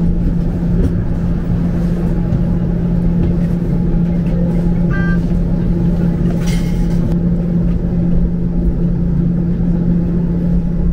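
Toronto streetcar running, a steady low hum and rumble, with a short high tone about five seconds in.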